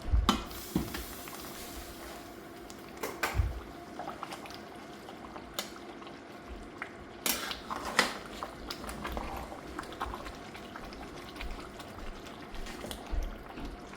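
Household water sounds, with water splashing and being poured, broken by several sharp knocks and clatters of things being handled.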